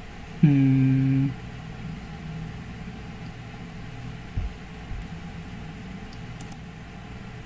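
A man's voice holding a flat hesitation sound for about a second, then a steady low hum with two soft low thumps a little past the middle.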